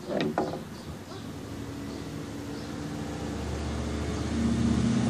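A motor running with a steady, even hum that grows gradually louder, after a couple of short squeaky sounds right at the start.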